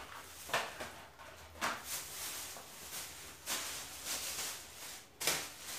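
Plastic shopping bags rustling and crinkling in several short bursts as groceries are pulled out of them.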